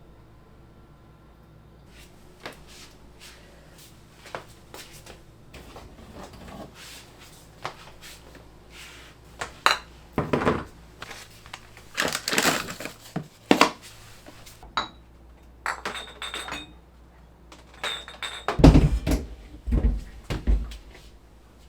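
Containers and dishes being handled and set down while a refrigerator is emptied and cleaned: scattered clinks and knocks, with louder clunks and thuds in two bunches, around the middle and near the end.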